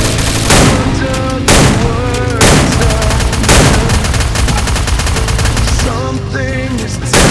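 Heavy metal instrumental passage: distorted guitars over pounding drums, with a loud crashing accent about once a second.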